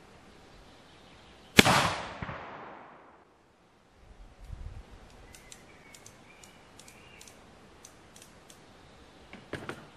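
A single shot from an original Civil War Starr .44 percussion revolver firing a paper cartridge: one sharp report whose echo fades over about a second and a half. Faint knocks and a scatter of light clicks follow, with a few more knocks near the end.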